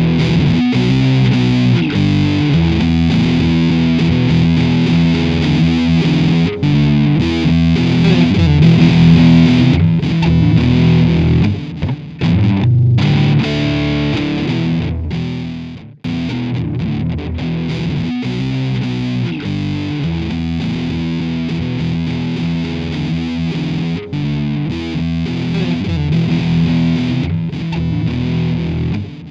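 Outro music led by distorted electric guitar, dropping out briefly about halfway through and then starting again.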